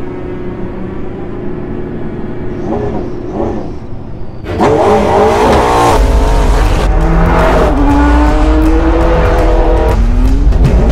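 Dark background music with low held tones; about four and a half seconds in, the McLaren 650S's twin-turbo V8 comes in loud, revving up and down, with sharp cracks near the end.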